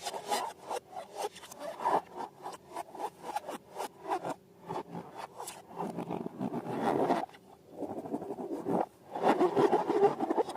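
Slime being worked by hand, giving a run of close, rapid crackling clicks with louder stretches about two-thirds of the way through and near the end.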